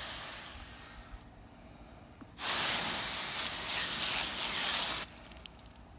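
Pistol-grip garden hose nozzle spraying a jet of water onto a cleaned crappie, a steady hiss. The spray eases off about a second in, then comes back loud for about two and a half seconds and cuts off suddenly.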